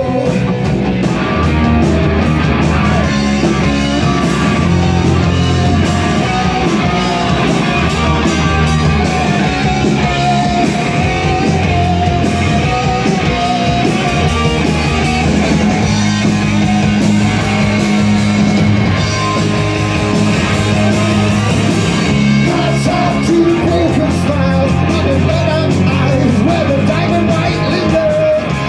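Live rock band playing loudly: electric guitars, bass guitar and a drum kit with a steady beat, and a singer's lead vocal over them.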